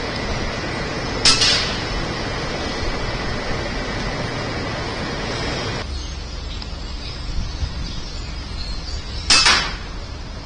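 .25 calibre air rifle fired twice, two short sharp shots about eight seconds apart, over steady background noise.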